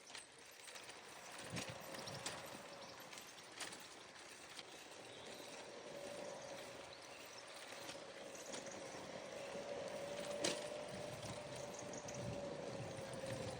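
A car driving along the road: steady road and tyre noise with a faint hum that drifts slightly in pitch, and a few sharp knocks, one about a second and a half in, one near four seconds and one past ten seconds.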